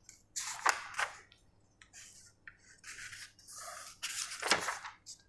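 A run of short, scratchy rubbing strokes at irregular spacing, the loudest near the end.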